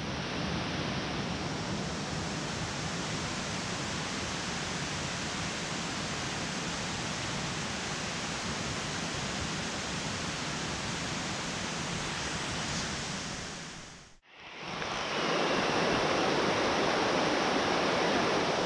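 Steady rush of water from a rocky creek, fading in at the start. It cuts out briefly about fourteen seconds in and comes back louder.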